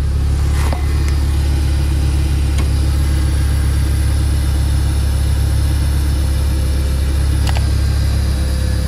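Mercedes-Benz W203 C230's engine idling steadily, heard from underneath the car beside the newly fitted fuel filter, with a couple of faint clicks.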